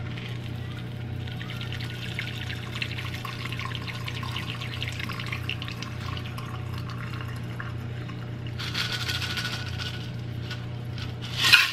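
Margarita poured from a stainless steel cocktail shaker through its strainer cap into a glass: a steady trickle of liquid for several seconds, then a second, shorter pour about nine seconds in. A louder knock comes near the end.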